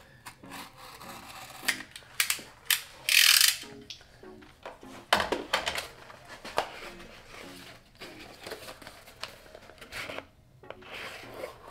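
A small cardboard parts box, sealed with a sticker, being handled and opened: clicks and scrapes of fingers on cardboard, with a short tearing rip about three seconds in.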